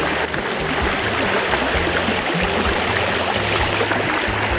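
Shallow river flowing over rocks: a steady, even rush of water.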